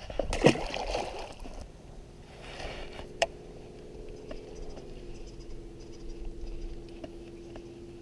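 A steady low motor hum that steps down slightly in pitch about five seconds in, with a sharp click about three seconds in and a few faint ticks after. Just after the start, a brief louder sound falls in pitch.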